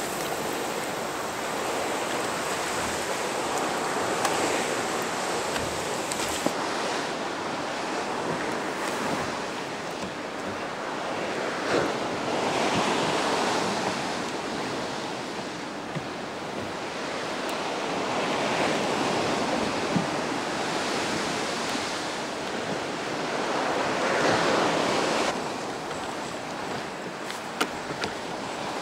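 Sea swell washing and splashing around a kayak and against sea cliffs, rising and falling in slow surges every five or six seconds, with a few sharp knocks.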